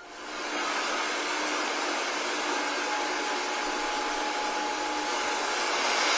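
A steady rushing noise with a faint hum, fading in over the first half second and then holding even.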